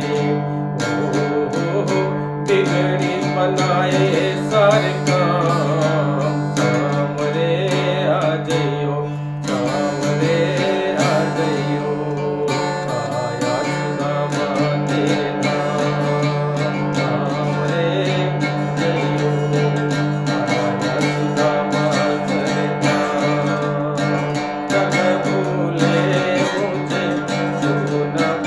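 A man singing a Hindi devotional bhajan while strumming an acoustic guitar in a steady rhythm.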